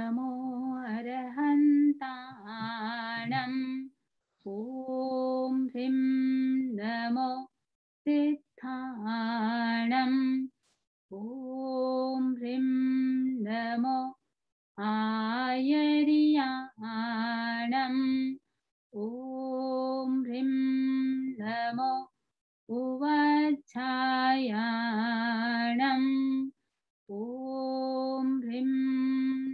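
A woman singing a Jain devotional chant, in phrases of a few seconds broken by short pauses for breath, on a mostly level melody with some wavering ornaments.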